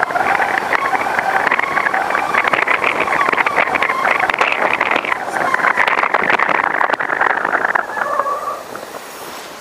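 A car driving along a road, heard from a camera mounted outside on its hood: a steady rush of tyre and wind noise that drops down about eight seconds in.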